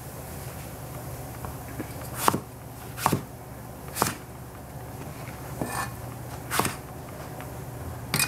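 Chinese cleaver chopping eggplant on a plastic cutting board: about six separate chops, roughly a second apart, starting about two seconds in, over a steady low hum.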